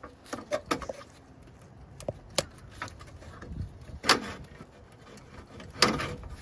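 Hands working an electrical connector loose under a car's front end: a series of small plastic clicks and knocks, the two sharpest about four seconds in and near the end.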